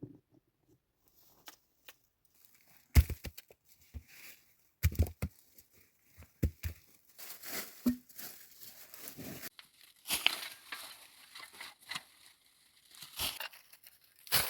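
Rustling and crinkling handling noise with a run of crackles, broken by sharp knocks about three, five and six and a half seconds in.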